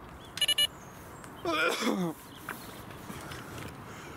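Three quick electronic beeps from a carp bite alarm on the rod pod, then a man's loud wordless whoop of joy.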